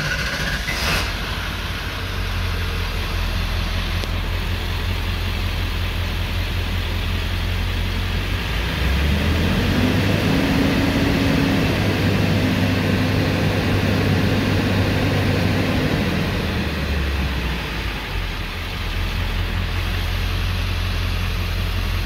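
Ford 7.3L Power Stroke V8 turbodiesel just fired on a hot restart, heard from inside the cab. It idles, is held at about 2000 rpm from about 9 seconds in, and drops back to idle at about 17 seconds. It restarts hot and runs with its new high-pressure oil pump, which the owner calls way big of an improvement.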